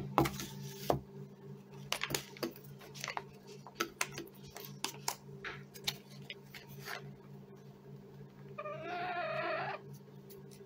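Lavender Ameraucana hen pecking treats off a plastic plate: a scatter of sharp clicks. About nine seconds in she gives one drawn-out, wavering call lasting about a second.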